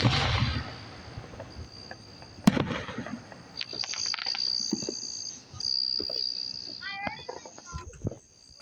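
Two aerial fireworks bursting, one right at the start with a low rumbling echo and a sharper report about two and a half seconds in. Crickets trill steadily and high-pitched between and after the bangs.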